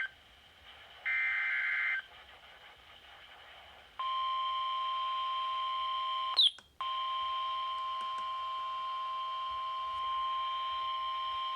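NOAA Weather Radio weekly test signal: a one-second burst of the SAME digital header about a second in, then a short quiet gap. About four seconds in, the steady 1050 Hz warning alarm tone starts and holds, broken once by a loud click and a moment's dropout soon after it begins.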